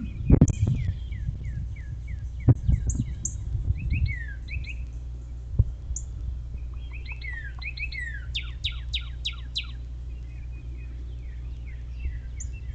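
Several songbirds singing in woodland: repeated short down-slurred whistles, with a quick run of sweeping notes about eight seconds in. Low thumps stand out near the start and twice more over a steady low rumble.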